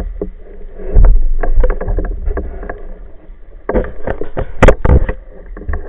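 Underwater handling noise through an action camera's waterproof housing as a speared brown meagre and the speargun are handled: a dense run of clicks and knocks over a low rumble, with a heavy rumble about a second in and the loudest knocks near the end.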